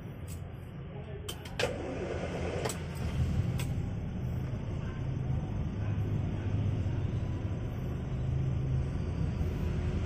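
Series III Land Rover engine idling steadily, with a few sharp clicks of the dashboard controls about a second and a half in as the newly fitted air conditioning is switched on. A steady hiss joins the engine from about two seconds in.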